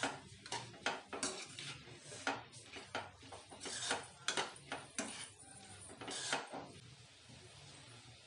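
A steel spoon scraping and clinking against a frying pan as vegetable filling is stirred, a quick irregular run of knocks and scrapes that thins out and softens for the last second or two.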